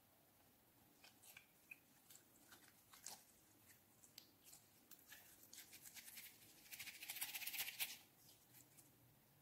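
Clear slime being stretched and squeezed between the fingers, giving off scattered sticky clicks and crackles, with a dense run of crackling a little before the end.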